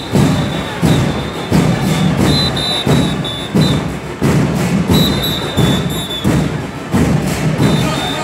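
Murga drum band playing bombo con platillo, the bass drums with cymbals mounted on top, in a steady heavy beat of about one stroke every three-quarters of a second, with crowd noise underneath.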